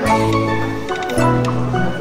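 Background music with sustained bass and chord notes and a few light percussive ticks; the bass note changes about a second in.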